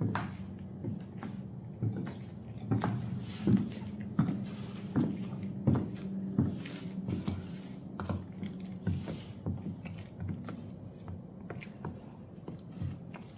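Footsteps in high heels, their clicks and knocks coming about every half to one second at a walking pace, over a steady low hum.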